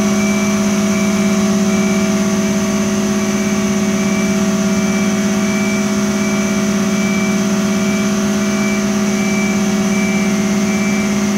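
Dennis Eagle refuse truck's engine and hydraulic pump running at a steady pitch as the tailgate lifts open, heard from inside the cab.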